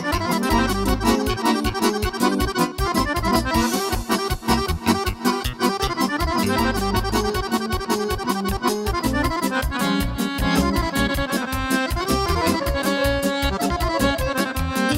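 Piano accordion playing a fast tune over a keyboard backing with a steady quick beat and bass notes.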